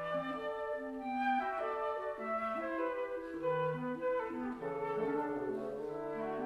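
A woodwind quintet of flute, oboe, clarinet, bassoon and French horn plays a classical piece. Several sustained wind lines move in counterpoint over a lower bass line.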